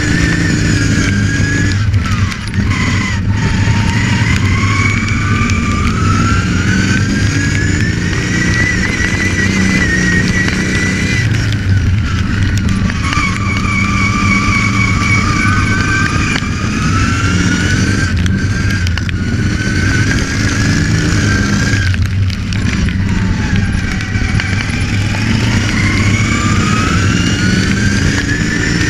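Racing ride-on lawn mower's engine running hard under an onboard microphone, with a high whine whose pitch drops and climbs back up three times as the revs fall and pick up again.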